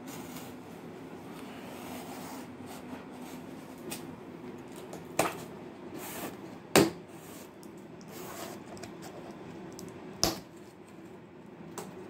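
A cardboard box being opened by hand: a pen tip scraping and slitting the packing tape, with rustling of the cardboard flaps. There are three sharp snaps, about five, seven and ten seconds in, the one near seven seconds the loudest, over a steady low hum.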